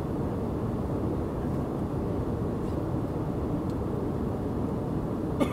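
Steady cabin noise of an airliner in flight, the even drone of engines and rushing air heard from inside the cabin, with a brief click near the end.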